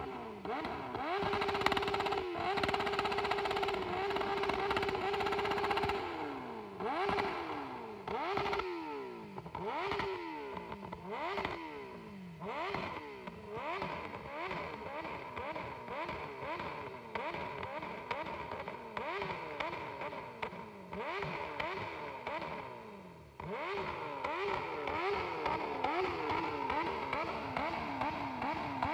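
Suzuki GSX-F inline-four motorcycle engine revved hard while standing: held at steady high revs against the rev limiter for about five seconds near the start, then blipped up and down over and over, about once a second at first and then quicker. It is being run hard enough that the exhaust headers glow red hot.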